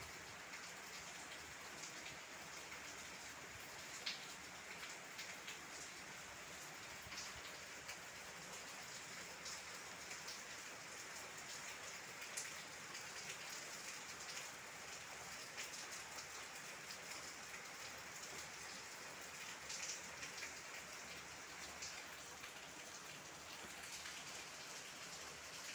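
Steady rain falling on foliage: an even hiss with scattered sharp ticks of single drops striking leaves, a few of them louder.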